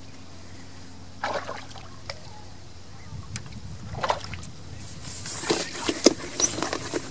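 Irregular clicks, knocks and rustles of fishing tackle being handled, growing busier and louder in the second half, over a steady low hum.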